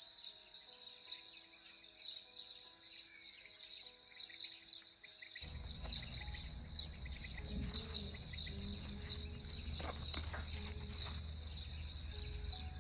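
Dense, steady high chirping of a birdsong background with soft sustained music notes over it. About five seconds in, the notes stop and a low rumble joins the chirping.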